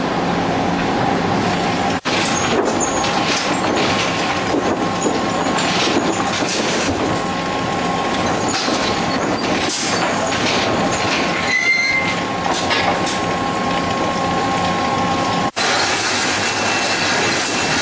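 Sawmill lumber-handling machinery running: chain transfer-deck conveyors carrying sawn boards, a continuous loud mechanical din with frequent knocks and clatter of boards and chain, over a steady whine.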